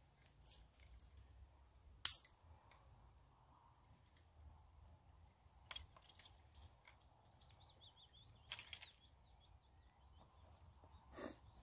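Wood campfire crackling quietly, with scattered sharp pops, the loudest about two seconds in.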